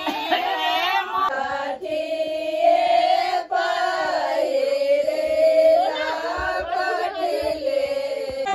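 A group of women singing together in long, drawn-out phrases.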